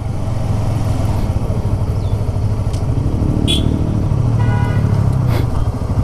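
Motorcycle engine running on the move, with wind and road noise, growing louder over the first second. A brief high pitched tone sounds about four and a half seconds in.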